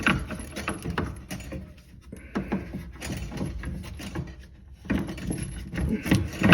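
Irregular metallic clicking and clattering of a hand tool working a plumbing nut under a sink as the connection is tightened.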